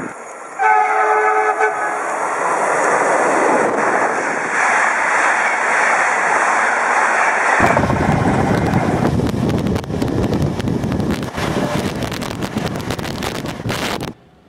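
A train horn sounds once, a held chord lasting about a second, over the rushing running noise of a passenger train at speed heard from an open window. After a cut the running noise is louder, with rapid clicking from the wheels on the rails and wind at the window, and it stops abruptly near the end.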